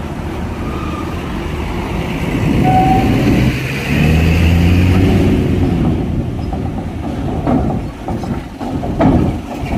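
Diesel engine of a Mitsubishi Canter light box truck driving up off a ferry's bow ramp onto the steel gangway, loudest as it passes close about four to five seconds in. Near the end come a few sharp clanks as its wheels roll over the steel ramp plates.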